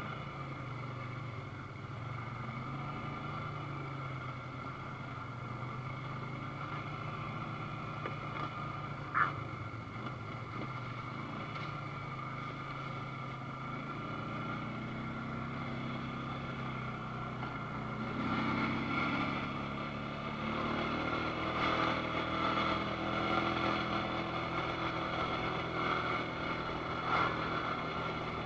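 ATV engine running while riding, its pitch drifting gently up and down with the throttle. It gets louder and rougher about two-thirds of the way through. A short high squeak comes about nine seconds in.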